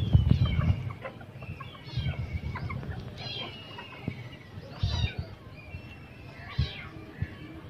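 Chickens clucking and calling in short repeated bursts, with a few low rumbles on the microphone in between.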